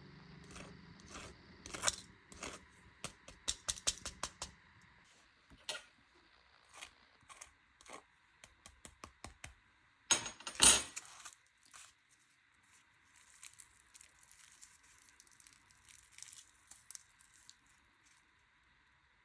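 Baked puff pastry crackling and crunching as it is broken open, with a run of small crisp cracks and one louder crunch about ten seconds in.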